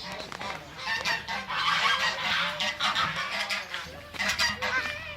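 A flock of farm poultry calling over one another, many short calls overlapping at once, easing briefly near four seconds in before picking up again.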